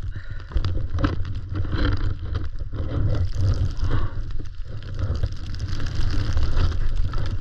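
Skis scraping and hissing over snow under a heavy, steady wind rumble on the camera microphone.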